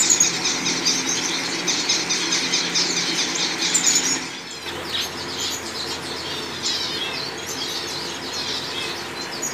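A flock of small caged finches chirping and twittering continuously, with wing flutters as birds fly between perches: young Gouldian finches at first, then owl finches and society finches, whose chirps take over about four and a half seconds in.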